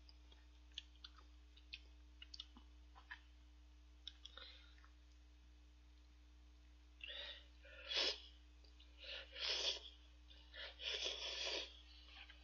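A person slurping hot instant noodles off chopsticks: faint clicks of the chopsticks at first, then a run of loud slurps over the last few seconds.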